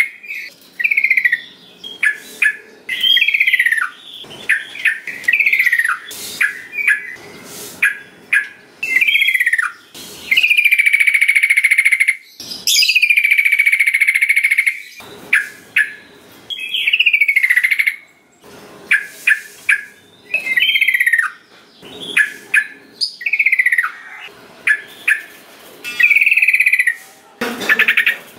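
Sooty-headed bulbul (trucukan) singing: repeated short, down-slurred whistled phrases broken by sharp chip notes, with two longer drawn-out whistles in the middle.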